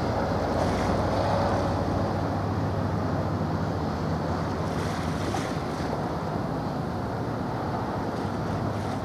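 Wind buffeting the microphone over choppy harbour water, with a low steady engine drone from the passing ships underneath.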